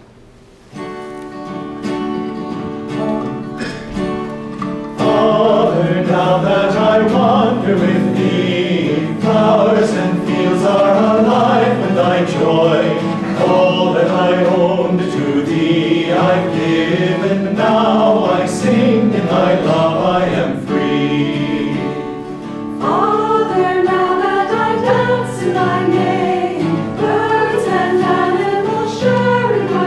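Mixed choir singing with acoustic guitar accompaniment. The guitar begins alone about a second in, and the voices come in about five seconds in.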